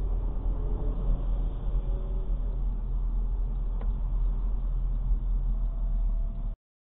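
Steady low rumble of a car's road and engine noise, picked up inside the cabin by a dashcam while driving, with one sharp click a little before the middle. The sound cuts off abruptly near the end.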